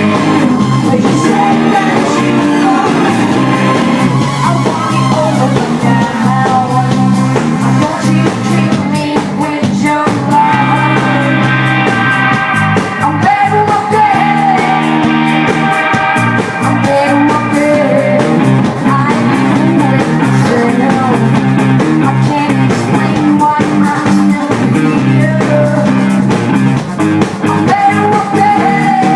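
A rock band playing live, loud and continuous, with a singer over the band.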